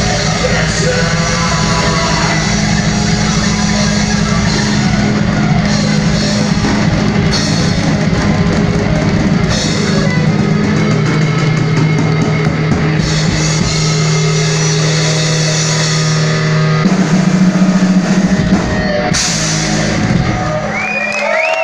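Heavy metal band playing live: electric guitars and a drum kit, the song coming to an end near the close.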